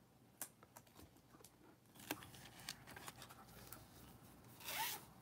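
Faint handling of trading cards and a clear plastic card holder by gloved hands: scattered light clicks and taps, then a brief sliding rub with a short squeak near the end.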